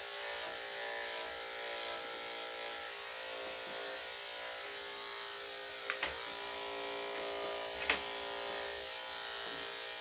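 Electric dog grooming clippers with a #10 blade running steadily with an even buzz as they shave a dog's underbelly. Two short sharp clicks come about six and eight seconds in.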